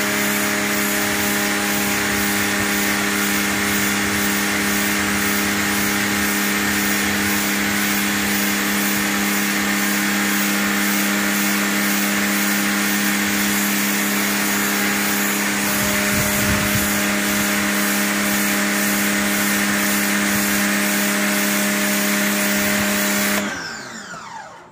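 Takara Europa high-pressure washer running steadily under load, its motor and pump humming over the hiss of the water jet blasting algae off a concrete path. Near the end the motor winds down in pitch and stops.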